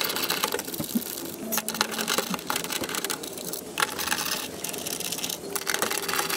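Hand socket ratchet clicking rapidly in short runs while undoing a bolt on a car body panel.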